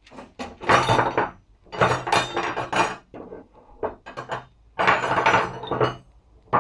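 Steel bars handled on a wooden workbench: metal clinks and knocks as the bars are picked up, dropped and slid against each other and the wood, in several clusters with short pauses between.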